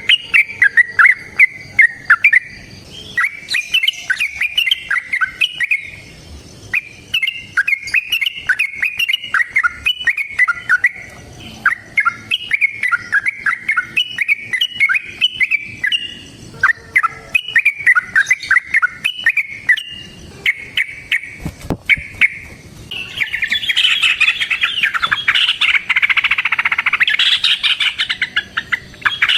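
Yellow-vented bulbul singing repeated bubbly, warbling phrases in bouts of a few seconds with short breaks. About three-quarters of the way through, the song turns into denser, louder, unbroken chatter.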